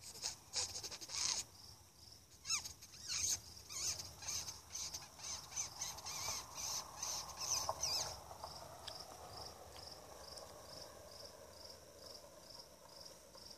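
Crickets chirping in a steady pulsing rhythm. Over the first eight seconds or so, a run of sharp crackling and rustling noises sounds over them, then stops.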